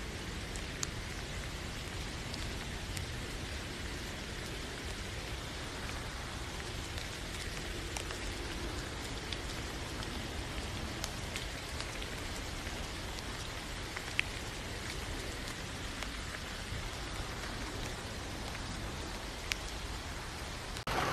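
Steady rain falling, with an occasional sharper drop striking nearby.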